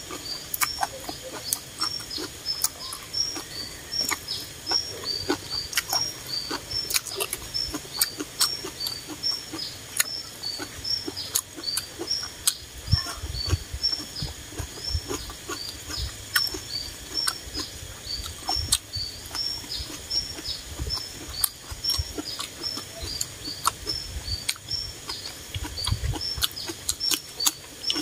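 Close-up chewing of crunchy vegetable salad, with many sharp wet mouth clicks and smacks. Behind it, a high chirp repeats steadily a few times a second, and a few low thuds come around the middle and near the end.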